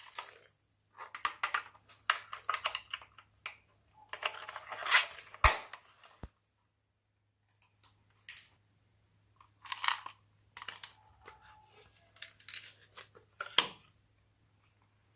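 Slime worked by hand, squished and pulled apart in irregular bursts of sticky crackling and tearing, with a short pause about halfway through.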